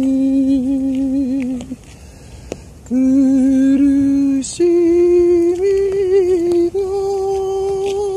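A man's voice humming long held notes without words: a note held, a short break for breath, the same note again, then a slow climb through three higher notes.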